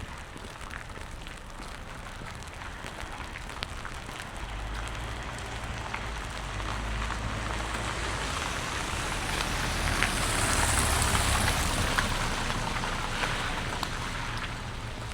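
A vehicle passes on the wet street: tyre hiss and a low engine rumble swell to their loudest about ten seconds in, then fade. Steady rain patters on the pavement underneath.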